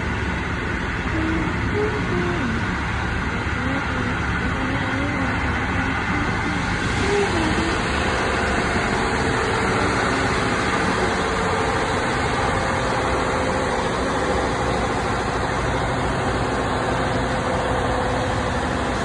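Steady running noise of a locomotive-hauled electric passenger train at speed, heard from on board: an even rumble of wheels on rails and carriage without a distinct rhythm.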